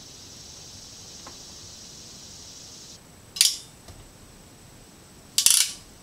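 Hand wire crimper clicking shut on a wire connector: two short metallic clicks about two seconds apart, the second louder, after a faint steady hiss that stops about halfway.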